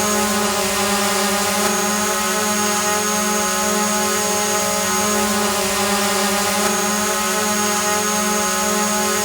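A hovering drone's motors and propellers buzzing steadily at one held pitch with many overtones. A faint thin high whine drops out for a few seconds in the middle.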